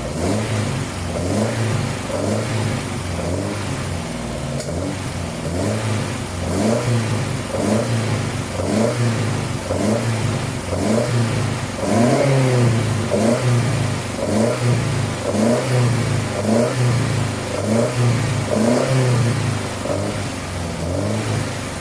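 Mitsubishi Astron 2000 four-cylinder engine in a freshly built 1985 Sigma running, its speed rising and falling in even swells about once a second, like repeated throttle blips.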